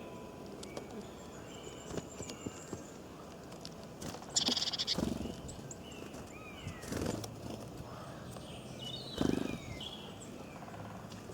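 Animal calls: three louder cries, about four, seven and nine seconds in, with short high chirps between.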